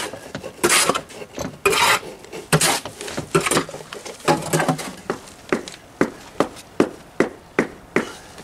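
A mason's hand tool working mortar into the joint under a stone step: a few scraping strokes, then steady sharp tapping about two or three times a second.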